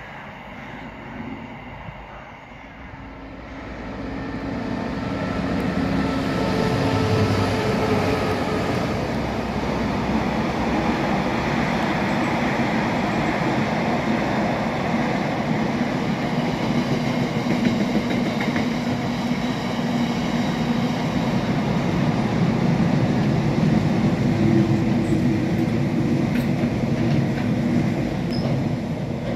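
Freight train passing on the far track: the rolling noise grows about four seconds in as the train draws level, then a long rake of tank wagons rolls by steadily.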